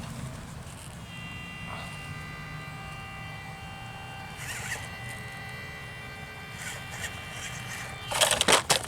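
Electric motor and gear drive of an RGT 136240 micro RC crawler whining at a steady pitch as it strains up a steep rock, at the limit of what it can climb. A loud burst of scraping clatter comes near the end.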